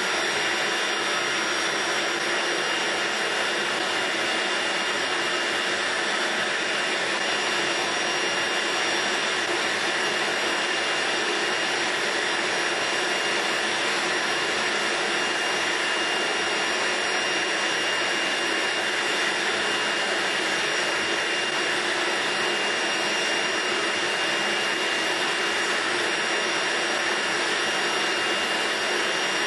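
Propane foundry furnace burner running: a steady rushing noise with faint steady high tones in it.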